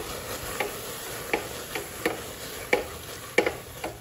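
A wooden masher stirring grated coconut and cooked green gram in a metal pressure cooker pot. It knocks and scrapes against the pot in irregular strokes, roughly one every half second to a second.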